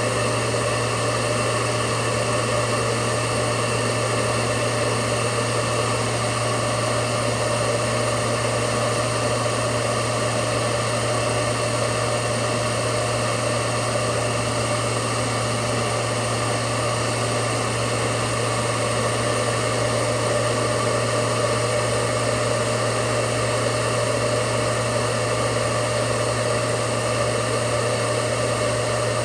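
Hoover Powerdrive XL vacuum cleaner motor running steadily, drawing air through its hose during an airflow test, with a constant hum and whine that do not change.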